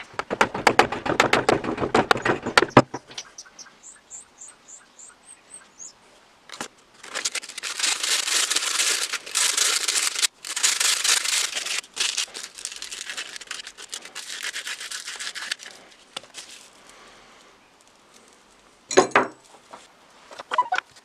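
Wooden tool handle being hand-sanded with a sanding sponge: a rough rubbing hiss in back-and-forth stretches with short breaks. It is preceded by a few seconds of fast, loud rasping scrapes, and there is one short knock near the end.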